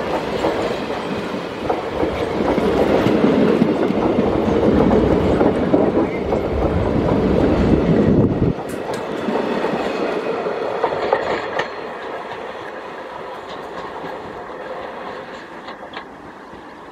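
Indian Railways passenger coaches rolling past close by, with a loud rumble and wheels clattering over the rail joints. About halfway through the sound drops abruptly to a quieter rumble of a receding train, which fades away.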